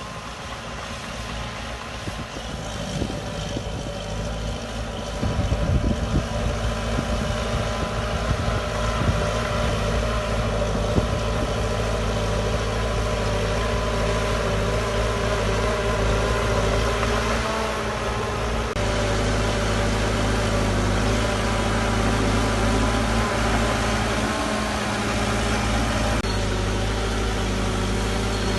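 Heavy earthmoving machine's diesel engine running steadily, growing louder over the first few seconds. The sound shifts abruptly about two-thirds of the way through and again near the end.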